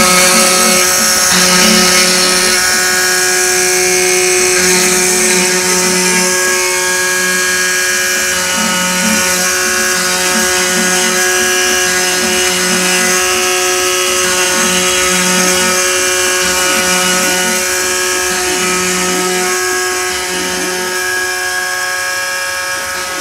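Homemade CNC machine engraving wood: the spindle runs with a steady whine, while the stepper motors hum in short on-and-off stretches as the axes move the cutter.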